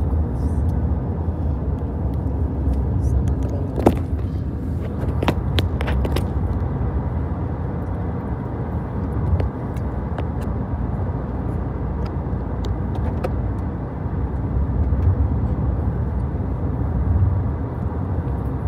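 Steady low rumble of a car driving at road speed, heard from inside the cabin, with a few short clicks about four to six seconds in.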